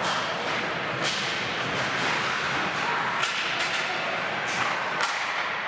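Ice hockey play on a rink: skates scraping the ice under a steady hiss, with about five sharp cracks of sticks striking the puck.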